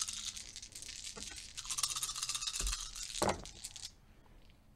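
A handful of plastic eight-sided game dice rattling as they are shaken in the hand, in two bouts, with a single knock about three seconds in.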